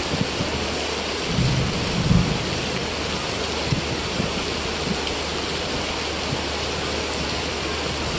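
Heavy tropical rain pouring down in a steady, loud hiss, with a brief low rumble about two seconds in.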